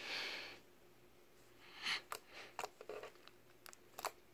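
White slime being pressed and kneaded by fingers: a soft wet squish at the start, then a scattered run of small sticky clicks and pops from about two seconds in.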